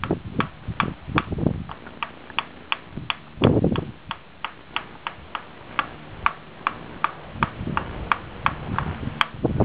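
Steady, gentle tapping on a wooden giant Jenga block near the base of the tower, about three light knocks a second, working the block loose by hand. One duller thump comes about three and a half seconds in.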